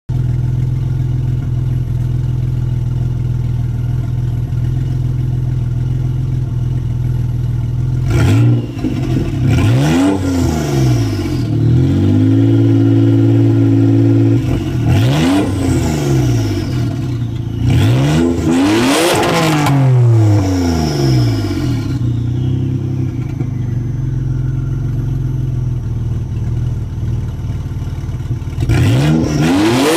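Dodge Stealth twin-turbo V6 running through an exhaust cutout: it idles steadily, then about eight seconds in revs up and down in several quick blips with one rev held for a couple of seconds, settles back toward idle, and revs again near the end.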